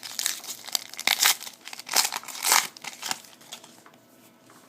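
Trading cards and their foil pack wrapper crinkling and rustling as they are handled, in several short bursts over the first three seconds, then fainter handling.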